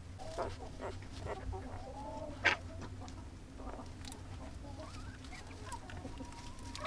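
Faint, scattered short squeaky animal calls, with one sharp click about two and a half seconds in and another at the very end.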